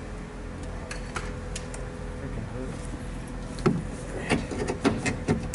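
Hands working a plastic wiring connector back onto a car's door lock actuator inside the door: a run of small clicks and knocks starting about halfway through, over a steady low hum.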